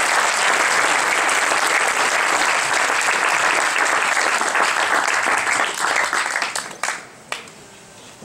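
Audience applauding, thinning out about six seconds in, with a couple of last single claps before it stops.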